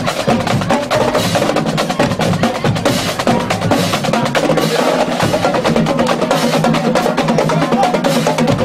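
Marching band drumline playing a fast drum cadence, a dense, unbroken stream of rapid strokes at an even, loud level.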